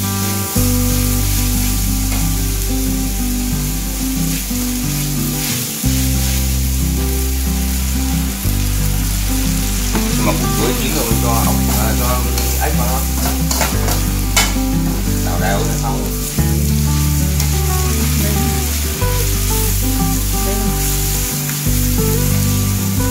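Shredded banana corm and frog meat sizzling as they are stir-fried in an aluminium wok on a gas burner. A ladle and chopsticks scrape the wok now and then, mostly from about ten to sixteen seconds in. Background music with a steady bass line plays throughout.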